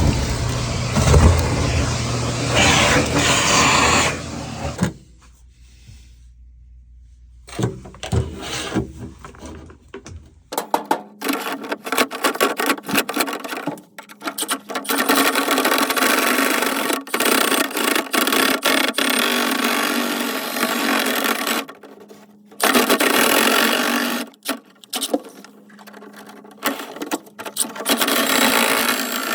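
A small motor running with a steady hum and dense rattling, starting about ten seconds in and stopping briefly a few times. Before it, for the first few seconds, there is louder uneven noise with a low hum.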